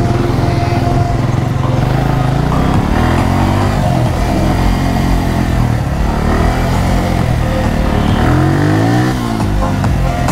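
Motorcycle engine revving up and down through a tight cone course, its pitch climbing and dropping several times as the rider opens the throttle between cones and shuts it for the turns.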